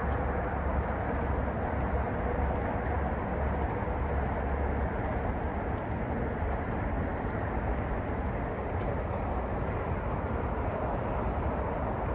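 Steady car road and engine rumble while driving, with no sudden events.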